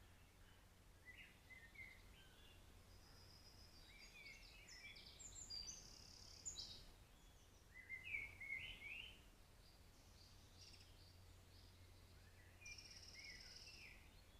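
Faint wild birdsong: short, high twittering phrases coming in clusters every second or two, over a faint low hum.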